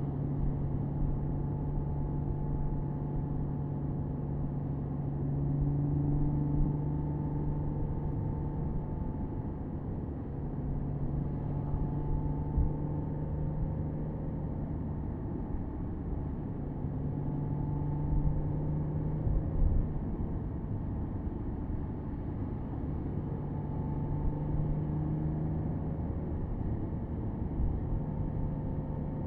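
Porsche Boxster S's 3.4-litre flat-six engine running at a steady cruise, its pitch drifting slightly up and down, with a low rumble of road and wind noise, heard from the open-top cabin.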